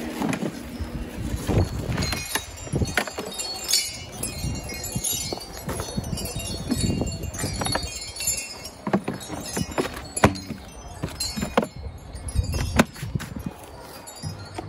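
Plastic clicks and knocks from a Greenworks 40V cordless lawn mower being moved and handled as its battery compartment lid is lifted, over a light, high tinkling.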